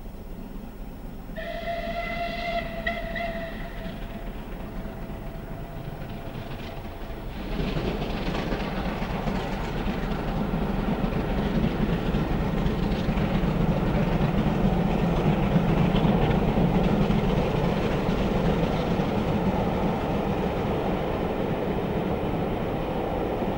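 Steam whistle of rebuilt Bulleid West Country Pacific 34027 'Taw Valley' sounding once for about two seconds, then the locomotive and its Pullman coaches passing by with a loud rumble and wheel clatter on the rails, loudest about halfway and easing off near the end.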